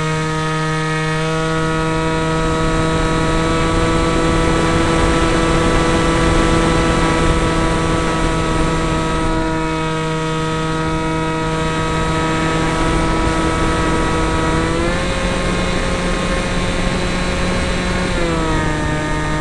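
Radio-controlled depron F-22 model jet's motor, heard from a camera riding on the model: a steady whine with wind rushing over the microphone. About 15 seconds in the whine rises sharply in pitch and drops back about three seconds later, as the motor is throttled up and back.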